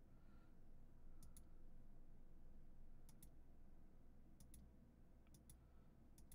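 Faint computer mouse clicks, coming in quick pairs about five times, every second or two, over a low steady room hum.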